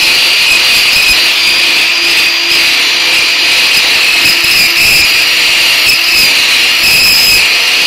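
A 20-volt cordless drill runs steadily at speed with its bit pressed against the rusty sheet-metal rim of a clothes dryer's drum bulkhead, giving a loud, high-pitched squealing grind.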